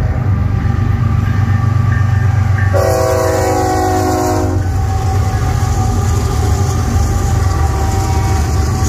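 Diesel locomotives of a BNSF freight train passing close by with a steady low engine rumble and wheels on the rails. About three seconds in, a locomotive's multi-chime air horn gives one blast of nearly two seconds.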